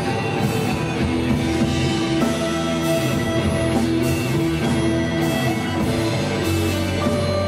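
Live post-rock band playing: electric guitars and bass holding long sustained notes over a drum kit, at a steady full level.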